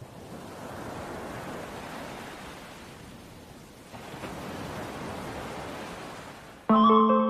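A steady rushing noise like surf or wind, easing off and swelling again about four seconds in. Near the end it cuts to music that starts suddenly, with plucked-string tones.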